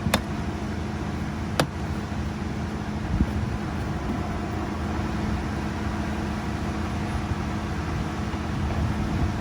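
A steady mechanical hum with a low tone, broken by two sharp clicks in the first two seconds and a knock about three seconds in.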